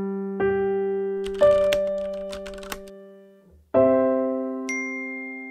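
Short intro jingle of piano-like notes: single notes that ring out and fade, with a few light clicks among them. After a brief gap a chord sounds and fades slowly, with a high chime joining it about a second later.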